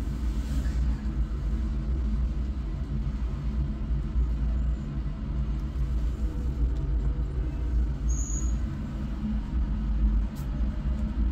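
Mother cat purring steadily while her newborn kittens nurse, a continuous low rumble.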